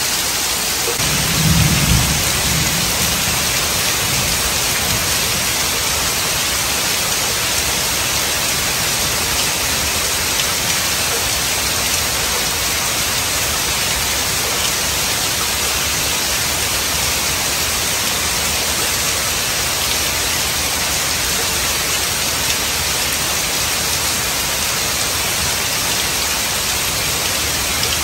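Heavy rain pouring steadily onto woodland trees and the ground. A short low rumble of thunder swells about two seconds in and fades over the next second or so.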